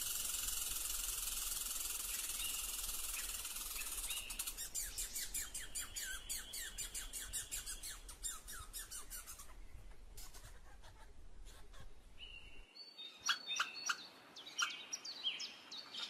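Squirrel calls: after a steady high hiss, a fast run of short chirps, several a second, starts about four seconds in and lasts about six seconds, and a few sharper high chirps come near the end.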